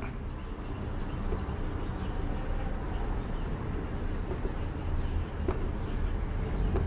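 Marker pen writing on a whiteboard, soft scratching strokes with a few small ticks, over a steady low hum of room noise.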